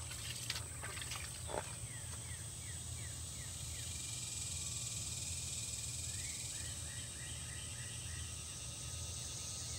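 Outdoor insect chorus: a steady high-pitched insect buzz, with runs of short falling chirps at about three a second over a low rumble. Two sharp knocks come in the first two seconds.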